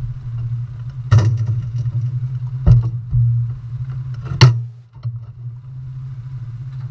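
Front-engine dragster's engine idling steadily, heard from a camera mounted on the car, with three loud, sharp knocks over the first half.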